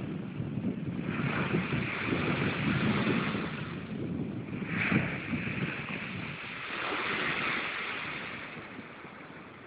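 Sea waves breaking and washing up a shingle beach, the surf swelling about a second in and again around five seconds, then dying down near the end. Wind buffets the microphone.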